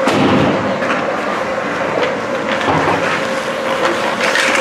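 Ice hockey skates scraping and carving on the ice, with sharp clacks of sticks and puck, over a steady hum in the rink.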